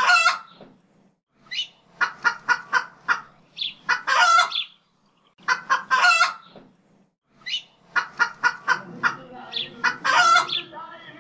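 Chicken clucking and cackling: a run of short sharp clucks ending in one longer drawn-out squawk, repeated about every two seconds.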